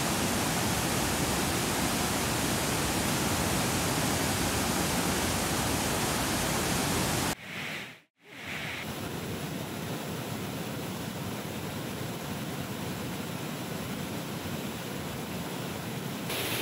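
Water pouring over a river weir and rushing through rocky rapids below it: a steady, loud rush of falling water. About seven seconds in it cuts off abruptly and drops out for a moment, then resumes a little quieter.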